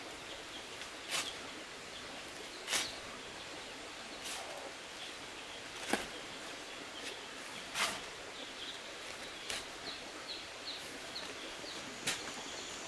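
A hoe scraping through a pile of dry sand and cement as it is mixed by hand, about seven short strokes spaced a second and a half to two seconds apart. Small birds chirp faintly behind it.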